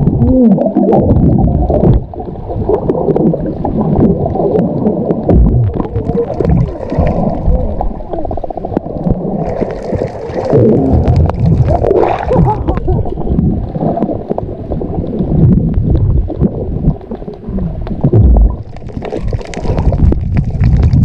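Muffled water gurgling and sloshing, dull and low with little high sound and many small knocks, as heard from a camera underwater.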